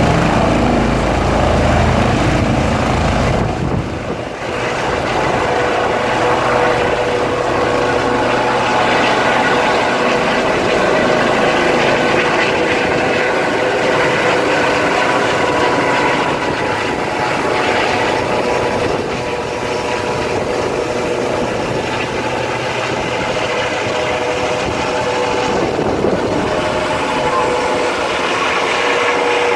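Airbus H135 helicopter with twin Pratt & Whitney PW206B3 turboshafts lifting off and climbing away: rotor and turbine noise, with a heavy low rotor beat in the first three seconds, then a steadier whine with several held tones as it climbs overhead.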